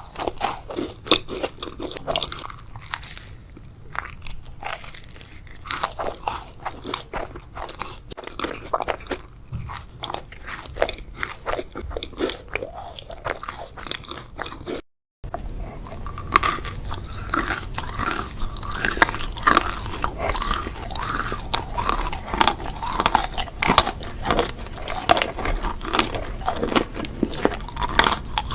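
Close-miked ASMR eating: repeated biting and chewing of crunchy food, a dense run of sharp crunches. The sound drops out completely for a moment about halfway through, then the crunching resumes.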